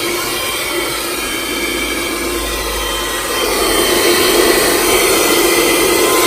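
Small 12-volt handheld car vacuum cleaner running steadily while sucking up dirt from the car interior, getting louder about three seconds in.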